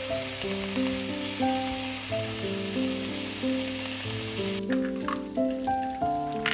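Bacon sizzling in a frying pan, with a gentle melody playing over it. About two-thirds of the way through, the dense sizzle drops to a quieter crackle with a few sharp pops as bacon and eggs fry.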